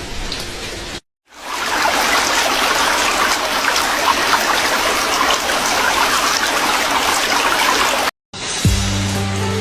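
Steady rush of heavy rain falling, a dense even hiss that starts and stops at abrupt cuts. Soft background music fades out at the start and comes back near the end.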